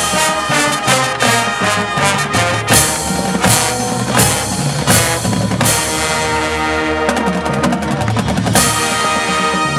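High school marching band playing, brass over a drum line with regular drum hits. From about six seconds in, the brass hold a chord while the drums play a fast roll.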